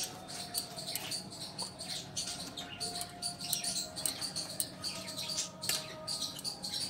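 A spoon spreading and scraping thick lentil paste over a taro leaf lying on a steel plate: a run of short, irregular wet scrapes.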